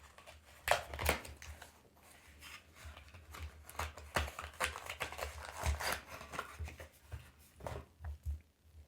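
Packaging of a Lightning to USB cable being opened and handled by hand: scattered rustles, scrapes and small clicks.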